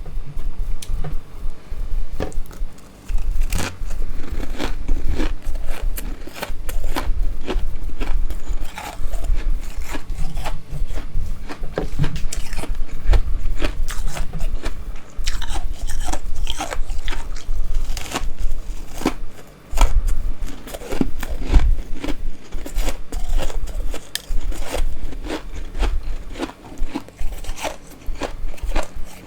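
Close-miked biting and chewing of freezer frost, with dense, crisp crunching and crackling. Bites come in quick succession, with short pauses about 3 seconds in and again around 19 seconds.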